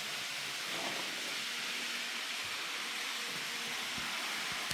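Steady background hiss with a faint low hum and a few soft clicks.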